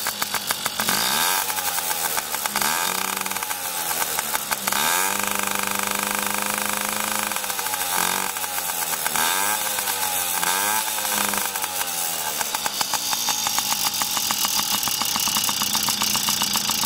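Yamaha PW50's small two-stroke engine running after a kick start, revved several times so its pitch rises and falls, settling to a steadier run in between and over the last few seconds.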